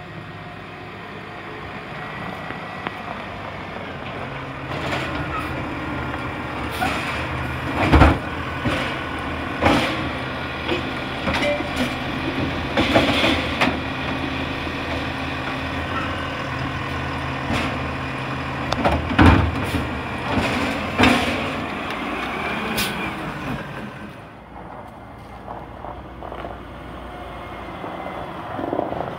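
Automated side-loader garbage truck with its diesel engine running steadily, its hydraulic arm lifting a recycling cart and tipping it into the hopper. The cart knocks and the load clatters out several times over the middle of the stretch, and it goes quieter near the end.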